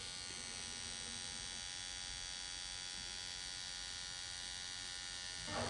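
Pen-style tattoo machine fitted with a 9-round-liner needle, running with a steady electric hum while it lines the tattoo freehand.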